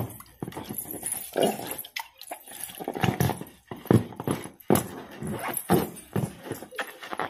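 Red rubber balloon squeaking and thumping as bare feet press and roll it on wet concrete, in a run of irregular thumps, with the small bells of silver anklets jingling. The balloon stays whole and does not pop.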